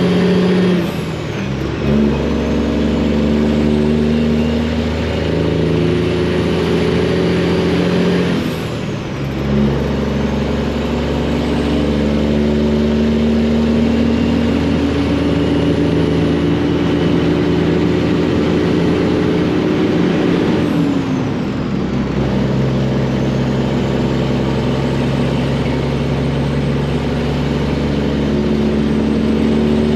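Freightliner truck's Detroit diesel engine pulling under load. It shifts up through the gears, with breaks about a second, nine seconds and twenty-one seconds in. A high turbo whistle drops away at each shift.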